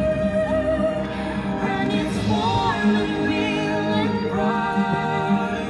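Show music with singing: voices hold long notes with a wavering vibrato over a steady musical backing.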